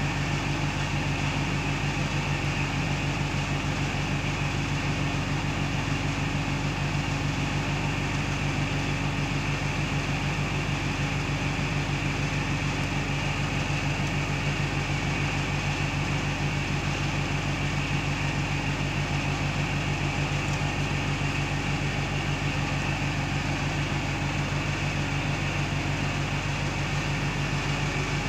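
Steady mechanical hum that does not change.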